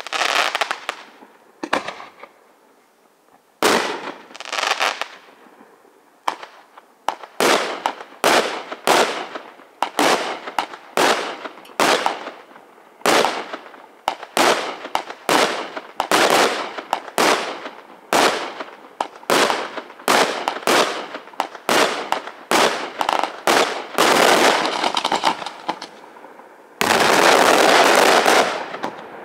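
Aerial firework shells bursting, one loud bang after another with a short lull a few seconds in, then a steady run of reports about every half second. Near the end a dense, unbroken barrage of bangs and crackling.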